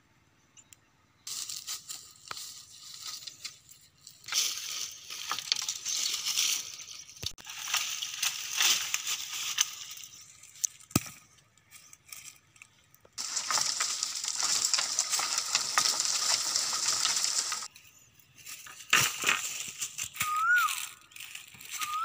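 Dry leaves, twigs and brush crackling and rustling in long stretches, with a couple of sharp knocks in between. Two short chirps of a bird near the end.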